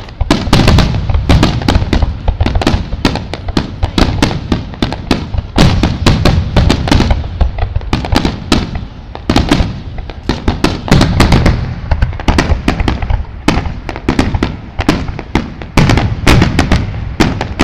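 Fireworks display: a dense barrage of aerial shell bursts, sharp bangs several times a second over deep rumbling booms, going on without a pause.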